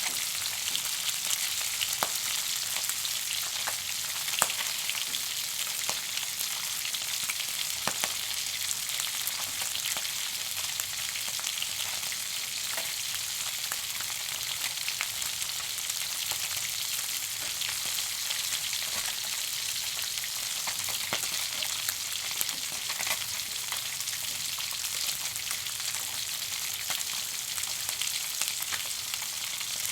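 Food sizzling in a frying pan: a steady, high hiss of frying with scattered sharp crackles and pops.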